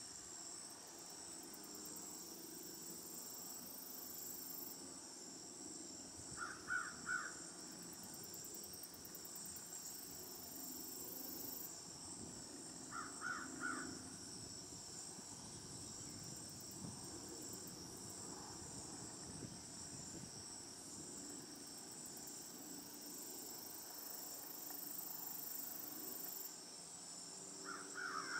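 Outdoor ambience: a steady high-pitched insect drone with a faint low hum beneath it, and three brief crow-like caws several seconds apart, the last near the end.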